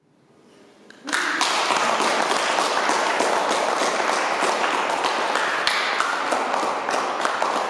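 Audience applauding: the clapping starts softly, breaks out fully about a second in, and then holds steady.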